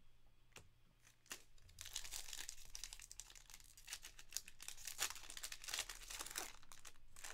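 Plastic wrapper of a Panini Prizm soccer trading-card pack being torn open and crinkled by hand, a dense crackle that starts about a second and a half in after a couple of light clicks.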